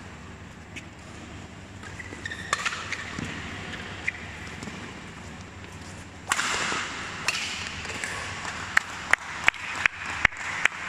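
Badminton racket strikes on a shuttlecock during a doubles rally, the loudest a jump smash about six seconds in. Near the end comes a run of sharp, evenly spaced claps, about three a second.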